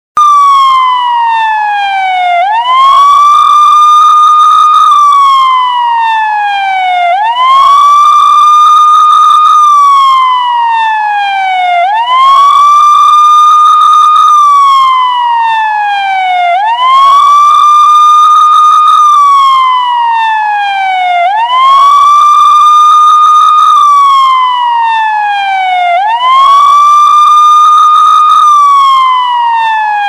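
Police siren sounding a slow wail: the pitch sweeps up quickly, holds high for about two seconds, then slides slowly back down, the cycle repeating about every four and a half seconds.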